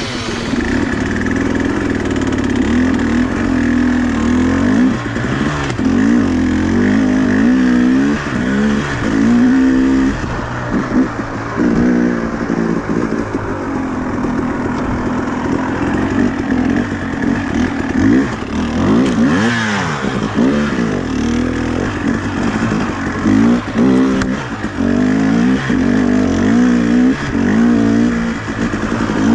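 Two-stroke dirt bike engine being ridden on a trail, its pitch rising and falling continuously as the throttle is opened and closed.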